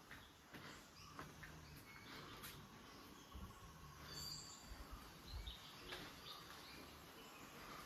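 Near silence: faint ambience with scattered soft clicks and a few brief, faint high chirps, likely birds.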